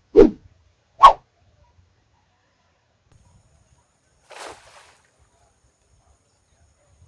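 A dog barking twice, about a second apart, with a fainter short noise about four seconds later.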